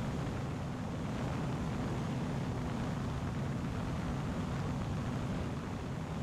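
Steady drone of a Zenith 750 Cruzer's Viking 130 engine and propeller in cruise flight, with wind noise, heard from inside the cockpit.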